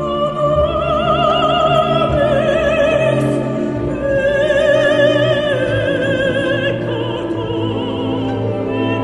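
Background music: a solo voice sings long held notes with wide vibrato, in operatic style, over an orchestral accompaniment.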